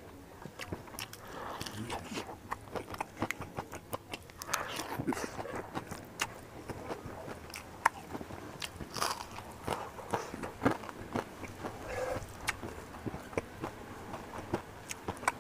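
Close-up eating sounds: wet chewing and lip smacks as a mouthful of rice and omelet curry is eaten by hand, in a run of short, irregular clicks, with soft squishing as fingers mix rice and curry on a wooden plate.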